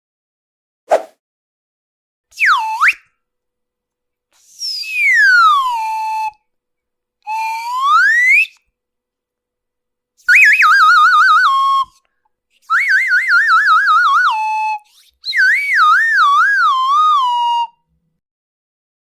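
A string of seven cartoon whistle sound effects with short gaps between them: a quick upward zip, a swoop down and back up, a long falling whistle, a rising whistle, then three wavering warbles that drift down in pitch.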